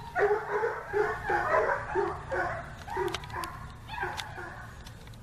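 A dog barking in quick repeated barks, about three a second, while chasing a running person. The barks weaken near the end.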